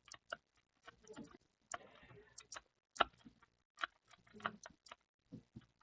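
Faint, irregular clicks and ticks, with a brief soft scratching about two seconds in, from a tool scraping burnt layers off a laptop motherboard's main power line.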